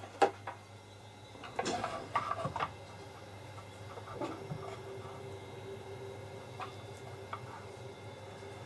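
Small handling taps and clicks as gloved hands move a silicone doll's arm and work on the wooden board: one sharp click just after the start and a cluster of taps about two seconds in, then fewer. A faint steady hum runs underneath, joined by a faint steady tone from about four seconds in.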